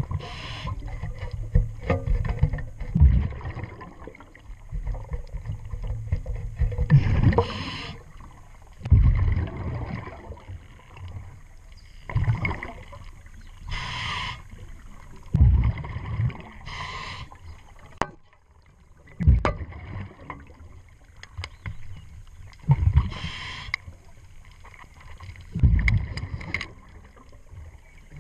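Scuba diver breathing through a regulator underwater: a cycle about every three seconds of a hiss and a rush of exhaled bubbles, with a few sharp clicks.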